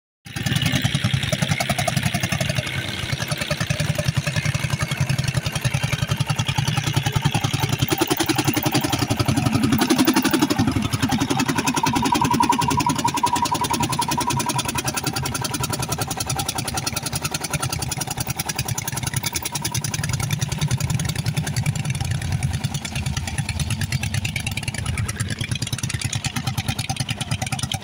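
Landini hot-bulb (testacalda) tractor's single-cylinder two-stroke semi-diesel engine running under load while pulling a plough, with a fast, even beat of exhaust pulses.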